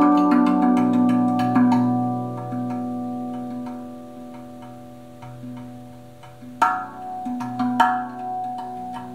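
RAV Vast steel tongue drum played by hand: struck notes ring on and overlap with a long sustain. The playing grows softer and sparser in the middle, then two sharper, louder strikes come about six and a half and eight seconds in.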